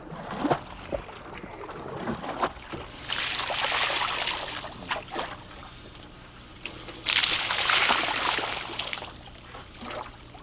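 Raw porcelain clay being stirred and sloshed by hand in water to dissolve it into slip, with two long bursts of splashing, about three seconds in and again about seven seconds in, and a few short knocks before them.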